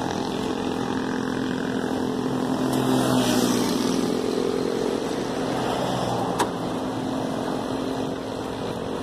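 A vehicle engine running steadily amid street traffic noise, with a single sharp click about six and a half seconds in.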